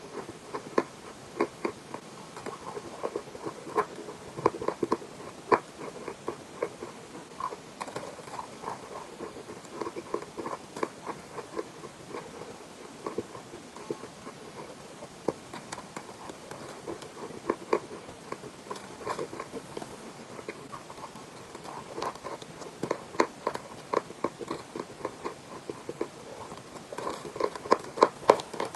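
Close-up chewing and crunching of chalk in the mouth: many sharp, irregular crunches, coming in clusters, with a denser run near the end.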